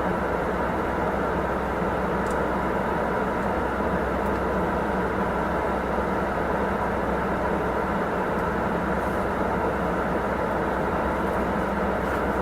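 Steady car cabin noise: road and engine hum inside a moving car.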